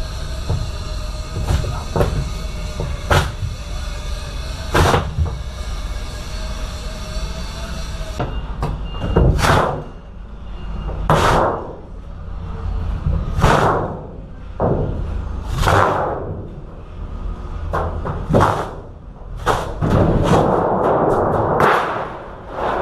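Repeated bangs and thumps, a second or two apart, of a large side-skin panel from a refrigerated trailer being pulled off and handled. A steady hum runs underneath and stops about eight seconds in.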